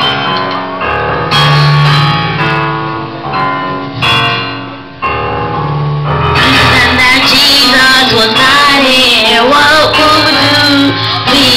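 Live band music: electric keyboard chords over a bass guitar line, with a boy's singing voice joining the band about six seconds in.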